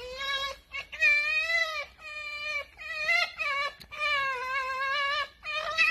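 Red fox whining: a run of high, wavering whimpering calls, some short and some drawn out over a second.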